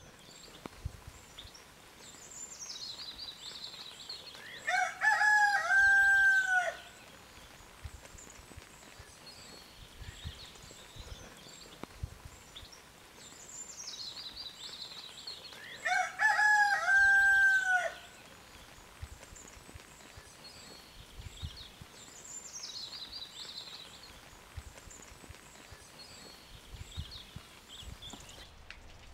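A rooster crowing twice, each crow about two seconds long and about eleven seconds apart. A small songbird sings short falling phrases in between.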